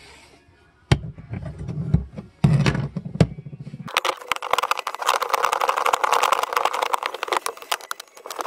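A few sharp knocks and clicks as a plastic access cover on the cargo floor is pried up, then about four seconds of rapid socket-ratchet clicking as the 12-volt battery terminal nut is loosened.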